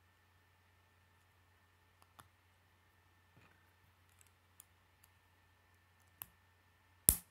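Plastic K'nex pieces clicking as connectors are pushed onto a rod: a few faint clicks, then one loud snap near the end.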